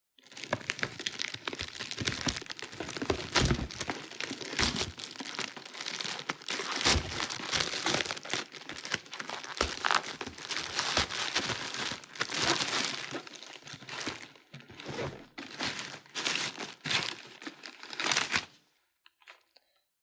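Wrapping being handled and unwrapped during an unboxing: crinkling and rustling with tearing and sharp knocks. It stops about a second and a half before the end.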